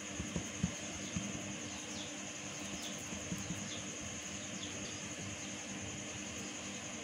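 Soft thumps of hands pressing and patting folded wheat paratha dough on a countertop, several in the first second and one more a little later, over a steady background hum with a thin high whine.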